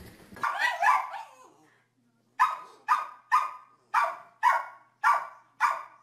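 Small terrier-type dog barking seven times in a steady run, about two barks a second, starting a couple of seconds in. A short pitched sound comes first, about half a second in.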